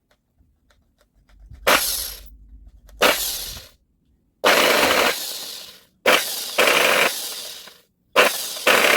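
Milwaukee SSD 1100 X reciprocating saw run in five short trigger bursts, each starting abruptly with a loud mechanical rattle and dying away as it is released.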